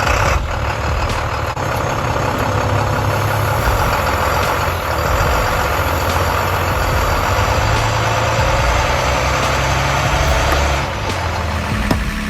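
A heavy vehicle's engine running steadily under load, its level dropping about eleven seconds in.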